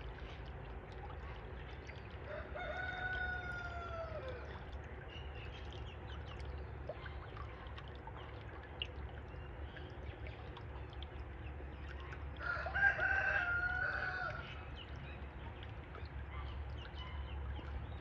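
A rooster crowing twice, each crow a long call that rises and falls, about ten seconds apart; the second is louder.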